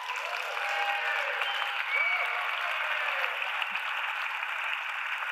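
Large audience applauding, with a few voices calling out over the clapping during the first three seconds.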